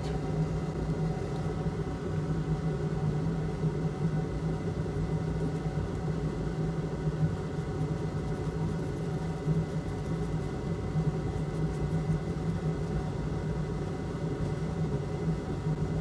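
A steady low machine hum with fixed tones, unchanging throughout.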